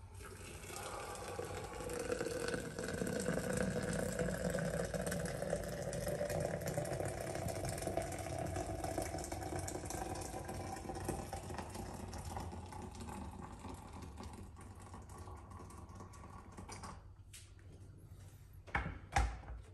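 Hot water poured from a stainless steel kettle into a glass French press of ground coffee: a steady pour whose pitch rises slowly as the press fills. The pour stops about 17 seconds in, followed by a few knocks as the kettle is set back on its base.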